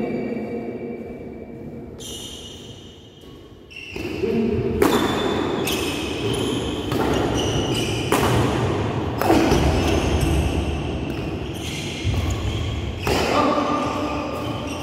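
Badminton being played in an echoing sports hall: sharp racket strikes on the shuttlecock and footfalls on the court, about one a second. Short squeaks come between the hits. There is a lull at the start, and the hits begin about four seconds in.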